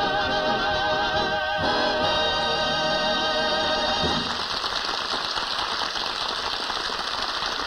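Male singers holding the last note of a song with vibrato, cutting off about four seconds in, followed by a studio audience applauding.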